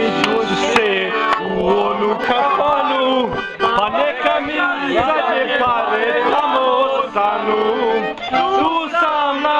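Piano accordion playing a lively folk tune, with a man's voice singing along in wavering, drawn-out notes.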